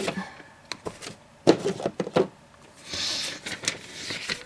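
Rummaging through an accessory box: several sharp knocks and clicks as items are handled, the loudest about one and a half to two seconds in, and a brief rustle of packaging around three seconds in.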